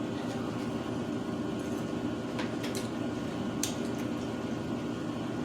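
Steady low room hum, with three or four brief clicks and crackles around the middle: small eating noises at a seafood-boil table.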